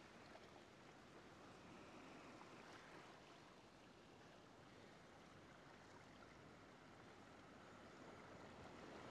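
Faint ocean waves washing on a shore, a soft steady hiss that swells slightly near the end.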